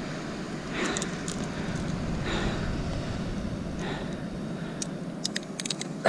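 Steady wind and surf noise with three heavy breaths about a second and a half apart. Near the end, a quick run of light metallic clicks as pliers work the lure free from the fish's mouth.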